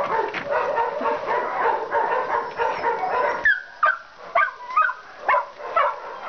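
A dog whining in a long, drawn-out run, then breaking into a series of short, high yips about twice a second.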